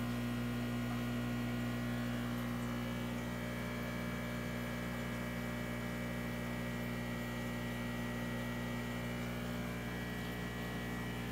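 Steady electrical hum of running aquarium equipment, unchanging throughout, with a few faint thin whines above it.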